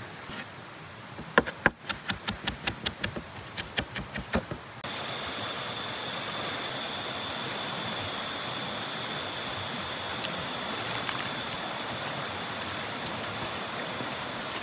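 A quick run of knife chops, about four to five a second, for a few seconds. Then rushing water of a fast shallow river over stones, with one steady high-pitched insect whine over it.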